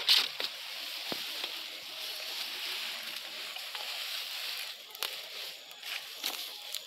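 Rustling and crunching of cut brush and dry vegetation being handled and laid over a charcoal kiln mound, with a few scattered snaps.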